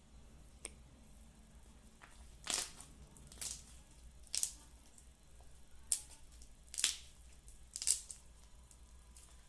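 Slime being squeezed and pressed by hand, giving six short squishes about a second apart, with a light click before them.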